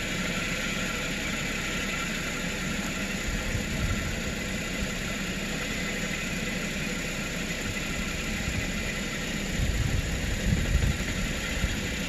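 2010 Toyota Corolla S's 1.8-litre four-cylinder engine idling steadily, an engine with an intermittent misfire on cylinder number 4. A few low thumps come near the end.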